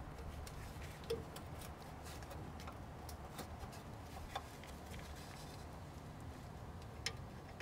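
Faint, scattered small clicks and light scraping of hand work on the oil cooler line fittings as stiff old rubber sleeves are worked back, over a low steady hum.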